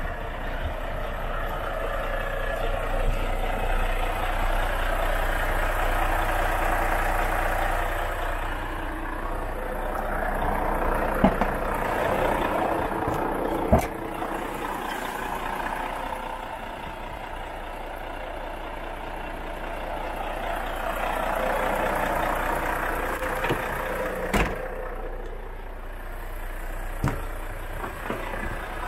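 Volvo FH 500 truck's 13-litre straight-six diesel engine idling steadily, its sound swelling and fading slowly. A few sharp clicks are heard here and there.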